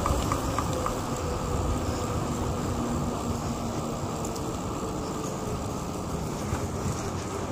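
Bicycle rolling along a paved trail: a steady rumble of tyres on asphalt and wind buffeting the microphone, with a few light clicks in the first second.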